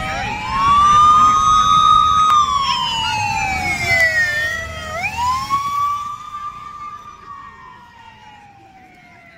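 Police motorcycle siren wailing in slow rises and falls as the motorcycles ride past, over the rumble of their engines. The siren is loudest in the first few seconds and fades away after about six seconds.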